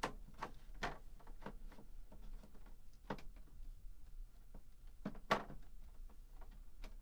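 Sharp clicks and knocks of an air conditioner's top cover being slid into place and its locking tabs snapping into engagement, at irregular intervals with the loudest knock about five seconds in.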